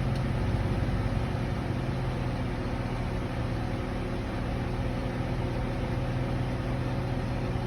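Chevrolet Silverado pickup's engine idling steadily with a low hum, no revving.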